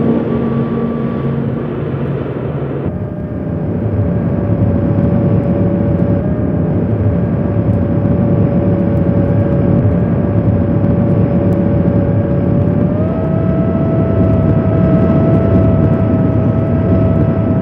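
Heavy machinery on a drillship running steadily: a loud drone with a held whining tone. The sound changes abruptly about three seconds in, and the whine steps up slightly in pitch about thirteen seconds in.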